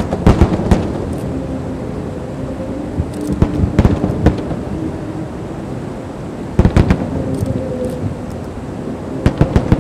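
Fireworks shells bursting in four clusters of several sharp bangs each, a few seconds apart, over a steady background din.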